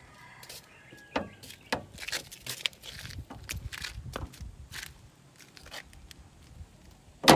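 Clicks, scrapes and knocks from a wooden gate in a metal frame being handled while a lock is fitted, with one loud sharp knock near the end.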